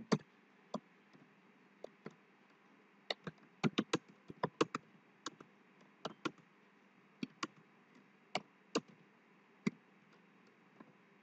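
Keys being typed on a computer keyboard: irregular clicks, bunched into a quick run about four seconds in, with sparser taps after.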